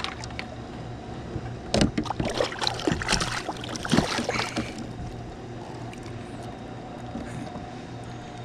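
Hooked channel catfish thrashing and splashing at the surface beside a kayak's hull as it is grabbed by hand: a run of sharp splashes starting about two seconds in and lasting nearly three seconds, then settling to the quieter lap of river water.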